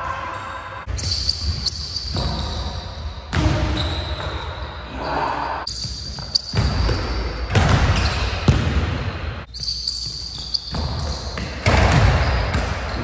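A basketball bouncing on a hardwood gym court: several separate sharp bounces spread through the few seconds.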